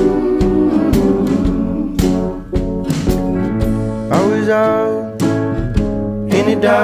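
Background music: a country-style song with guitar, a steady drum beat and a singing voice.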